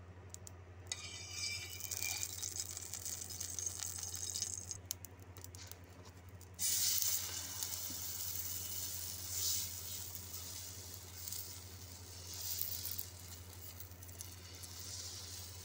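Urad dal and rice chila batter hitting a hot oiled iron tawa: a sudden loud sizzle about six and a half seconds in, which eases to a softer sizzle as the batter is spread with a ladle. Before it, a fainter hiss of oil heating on the griddle.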